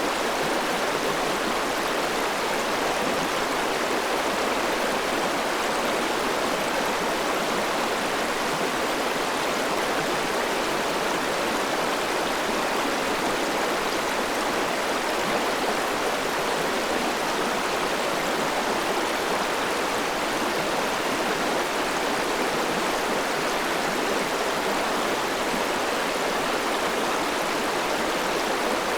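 River water flowing steadily: an even, unbroken rushing with little deep rumble.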